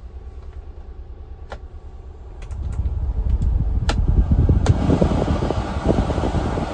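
Honda Acty truck's heater/A/C blower fan being switched on and turned up: a few clicks from the dash controls, then the steady rush of air from the vents grows louder about two and a half seconds in, over a low steady rumble.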